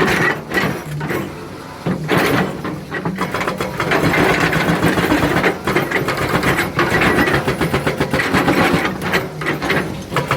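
Excavator's diesel engine running with a rapid, even clatter, easing off briefly about a second in and then picking up again.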